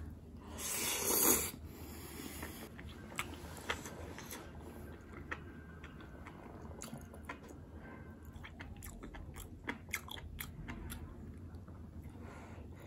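A person eating spicy soft tofu stew: a short, loud breathy sound about a second in, then chewing with many small wet mouth clicks.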